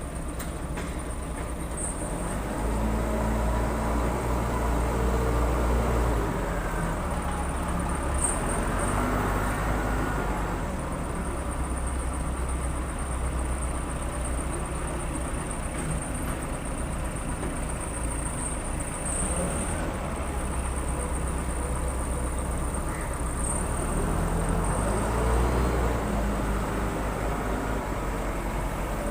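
Case 580 Super L backhoe loader's diesel engine running under load as the hydraulics work, its revs rising and holding higher for several seconds about two seconds in and again near the end.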